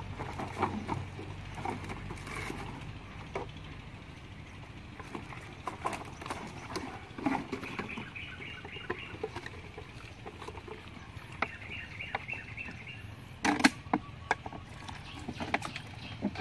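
Empty plastic drink bottles being handled and set down on dry ground: irregular light clicks and crinkles, with a louder cluster of knocks about thirteen seconds in.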